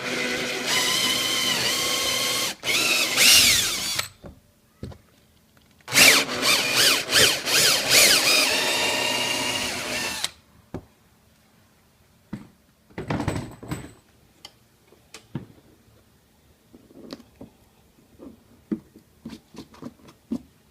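Electric drill running with a 7/32-inch bit to open up a mounting hole: two runs of about four seconds each, the motor's whine dipping and wavering in pitch as the bit bites. A short third burst follows about halfway through, then light clicks and handling sounds.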